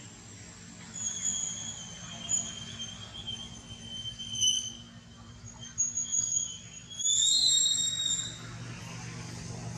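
A series of high, thin whistling squeals, each held for a second or more, loudest in a long one near the end, over a low steady hum.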